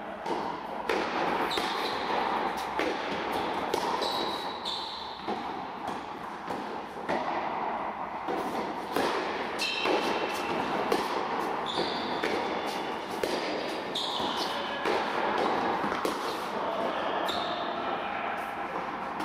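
Tennis rally on an indoor court: rackets striking the ball and the ball bouncing, a sharp pop every second or so, echoing in the large hall.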